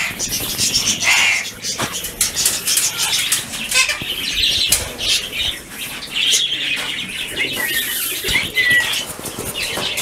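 A shed full of caged parakeets, ringnecks and budgerigars, chattering with many quick chirps and a few short whistles, with wings flapping in the cages.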